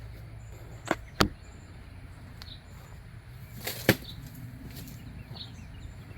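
Two sharp knocks about a second in, then a short clatter near four seconds, over faint bird chirps.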